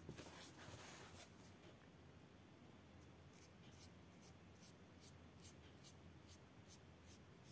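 Faint felt-tip marker strokes on colouring-book paper: short, light scratches repeating about three times a second while an area is coloured in.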